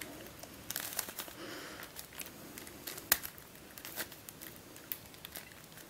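Plastic pieces of an MF8 Starminx I twisty puzzle clicking and scraping as its faces are turned by hand while it is scrambled, in a string of irregular sharp clicks. The puzzle turns somewhat roughly, not smoothly.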